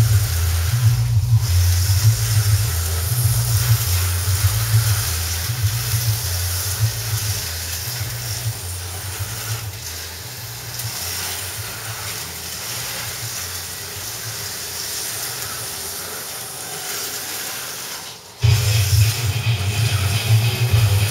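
Aurora AFX HO-scale slot cars running on a plastic track, their small motors making a steady high whirring hiss. Background music with a bass beat fades out over the first half, and music starts again abruptly near the end.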